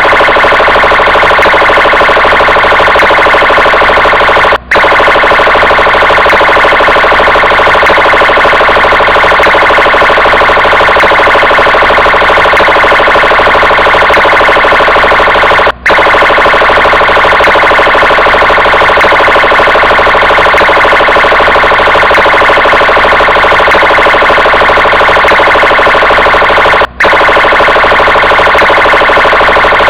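Brazilian Military Police car siren sounding loudly and without pause, with a brief break three times, about every eleven seconds.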